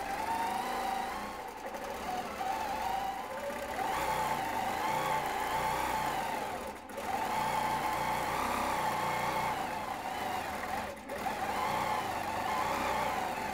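Handi Quilter Infinity longarm quilting machine stitching free-motion swirls, a steady whirring run whose pitch wavers as it is guided across the quilt. It stops briefly twice, about halfway through and again near the end.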